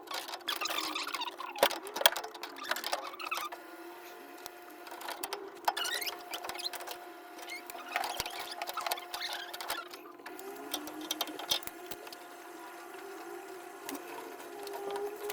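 Irregular clicks, knocks and short squeaks of tools and pipe fittings being handled during plumbing work, over a steady hum.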